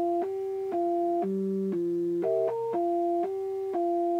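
Organ-like electronic tones from a MIDI-driven laser galvo board: two or three pure notes held together, stepping to new pitches about every half second.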